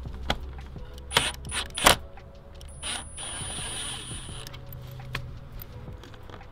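Sharp clicks and knocks of plastic clips, screws and tools as fasteners are worked loose from a car's front grille, with a short hissing, whirring stretch about three seconds in.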